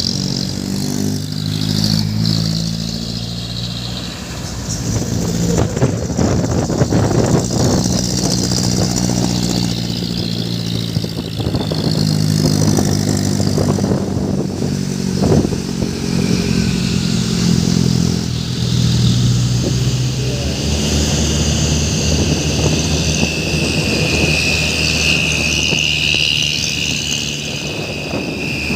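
Truck engine revving over and over, its pitch rising and falling with each push of the throttle, then settling into a steadier run for the last several seconds, when a high steady whine joins in.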